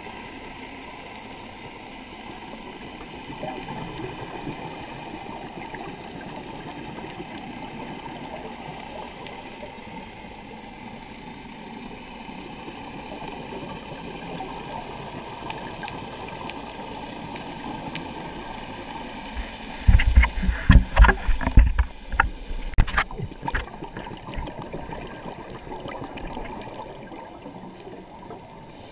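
Underwater rushing ambience of a scuba dive, with a cluster of loud gurgling bubble bursts lasting about three seconds, two-thirds of the way in: a diver exhaling through the scuba regulator.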